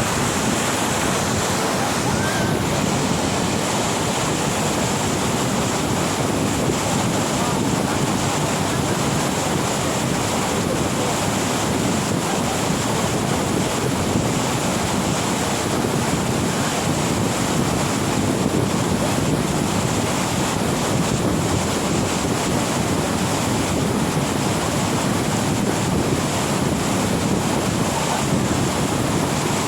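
Waterfall rushing: a steady, loud noise of falling water that does not let up.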